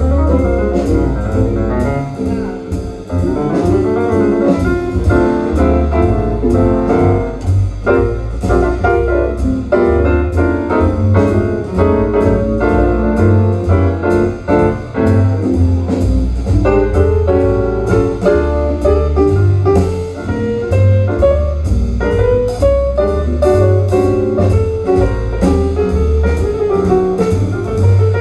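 Instrumental jazz played back over a hi-fi system's large horn loudspeakers and heard in the listening room, with a steady beat and a prominent bass line.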